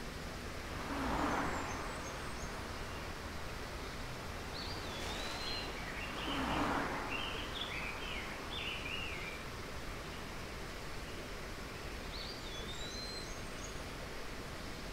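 Outdoor ambience: a steady background hiss with birds chirping in short bursts several times, and two brief swells of rushing noise, about a second in and again about six and a half seconds in.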